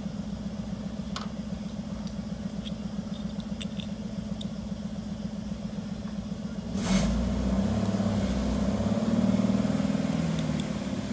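A motor vehicle engine idling steadily with an even pulse. About seven seconds in, a louder, deeper vehicle engine sound comes in suddenly and eases off slightly near the end. A few light clicks of small metal parts being handled sound over it.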